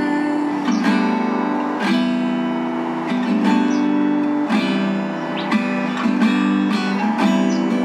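Acoustic guitar strummed in a steady rhythm, chords ringing between the vocal lines of a song.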